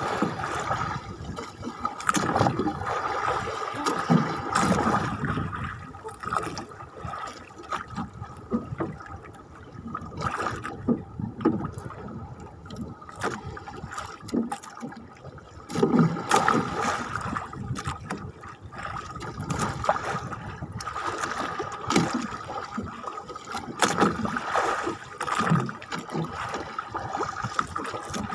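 Choppy sea water sloshing and slapping against the hull and bamboo outriggers of a small outrigger boat, in irregular surges every few seconds.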